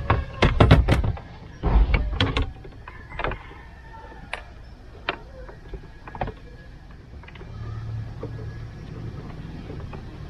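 Clicks, knocks and rustling of plastic connectors and wiring being pushed into the dashboard opening behind a car's head unit, a quick flurry of knocks in the first two seconds, then single clicks about once a second.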